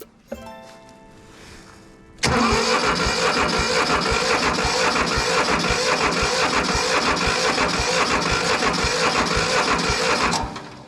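Mitsubishi D1100FD tractor's diesel engine starting and running loudly with a rapid, regular low pulsing. It cuts in suddenly about two seconds in and stops abruptly near the end.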